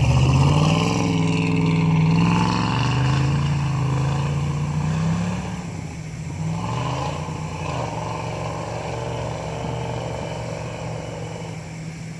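Jeep Wrangler engine revving under load through deep snow, its pitch rising and falling repeatedly as the throttle is worked, loudest in the first few seconds.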